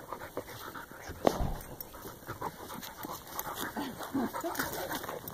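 A German shorthaired pointer puppy and a shepherd-mix dog play-fighting: short dog breaths and grunts over scuffling, with one sharp knock a little over a second in.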